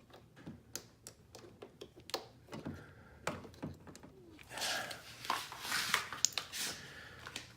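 Hands working a plastic door trim panel and its retaining clips: scattered light clicks and knocks, then a louder stretch of scraping and rustling with a few sharp clicks in the second half.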